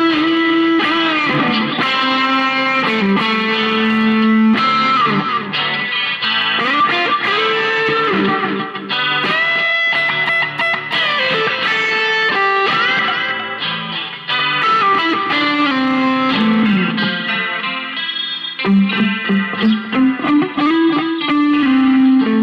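Chinese-made Telecaster-style electric guitar playing an improvised lead line in an overdriven tone over a looped clean rhythm part, with string bends and held notes, and a run of quick picked notes near the end.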